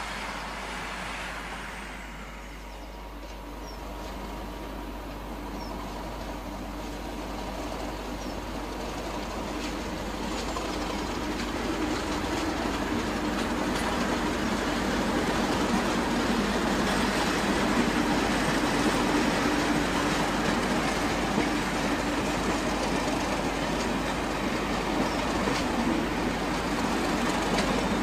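Diesel-hauled train of Class 37 locomotives and coaches passing, its English Electric V12 engine note steadily growing louder as it nears over the first half, then holding steady.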